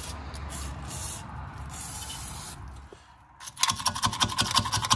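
Aerosol brake cleaner spraying steadily onto a drum-brake backing plate for about three seconds. Then, louder, a hand tool scrubs and scrapes the grimy plate in quick repeated strokes.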